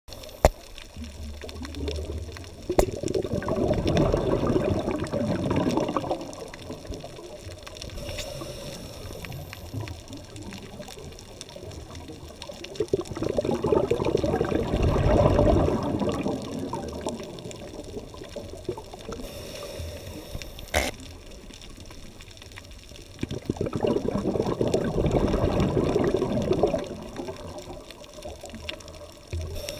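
A scuba diver's exhaled bubbles from the regulator, heard underwater as three bubbling bursts of about three seconds each, roughly ten seconds apart, with quieter water noise between them. One sharp click about two-thirds of the way through.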